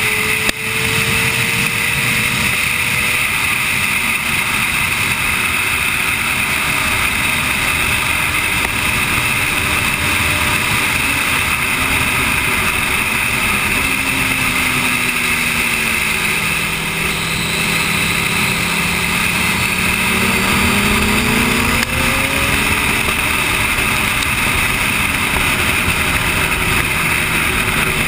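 Sport motorcycle at track speed heard from a camera mounted on the bike: heavy wind rush over the microphone with the engine running underneath. About halfway through the engine note drops as the bike slows into a corner, then climbs again as it accelerates out.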